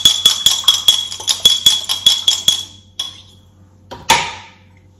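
Metal spoon stirring fast inside a small glass jar of lemon-and-olive-oil dressing, a quick run of clinks against the glass with a ringing tone. The stirring stops just under three seconds in, and a single sharp knock follows about a second later.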